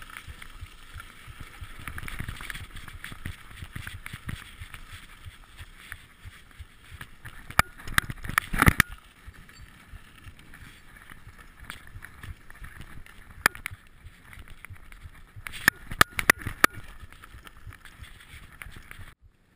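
Mountain bike being ridden over a gravel and dirt trail: a steady noise of tyres on loose ground and the bike rattling, with wind on the microphone. Sharp knocks and clicks from bumps come in a cluster about eight seconds in and again around sixteen seconds.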